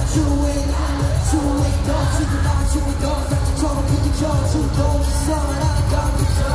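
Live K-pop pop song over an arena sound system: a male singer's voice carries the melody over a backing track with heavy bass.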